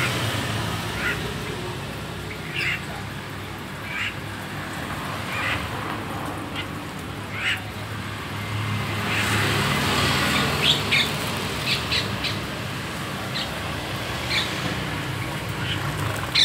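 Short, high bird calls at irregular intervals, over a steady low hum.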